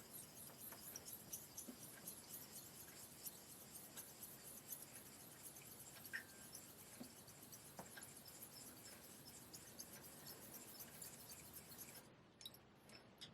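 Faint, steady scraping of a straight razor being stroked back and forth across a Japanese natural finishing whetstone covered in slurry, a fine hiss with small ticks; the strokes stop about a second before the end.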